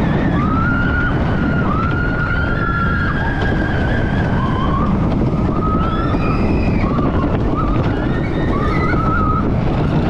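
Vekoma suspended looping coaster train running at speed: a steady heavy rush of wind on the microphone and rumble from the train on the track, with riders screaming in several wavering, drawn-out yells throughout.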